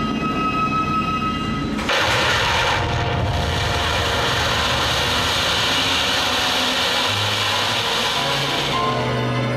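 Stage fire and smoke effects going off: about two seconds in, a loud, steady rushing hiss starts suddenly and runs for about seven seconds, dying away near the end, over the show's background music.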